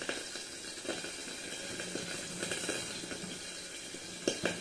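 Gas stove burner flame hissing steadily as a banana leaf is warmed over it, with a few soft rustles and crackles from the leaf, the loudest cluster near the end.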